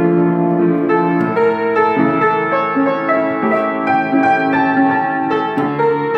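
Solo piano playing a waltz: a melody over sustained chords that change every second or so.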